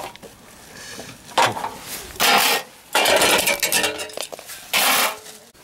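Hand tools working apart the sheet-metal frame and plastic parts of a massage chair being dismantled for scrap: metal scraping and clinking in several short bursts, the longest about three seconds in.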